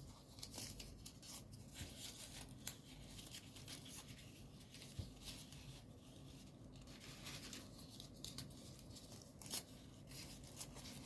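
Folded paper origami units faintly rustling and crinkling as they are handled and slotted together, with scattered small crackles and ticks, one a little louder near the end.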